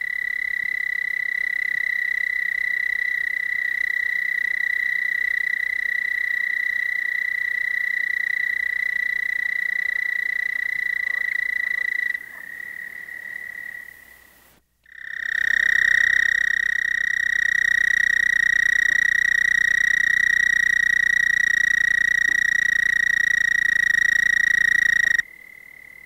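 American toad (Bufo americanus) giving its mating call: two long, steady, high-pitched trills, the first about twelve seconds long and fading out, the second louder and about ten seconds long after a short break. The trill pulses about 30 times a second.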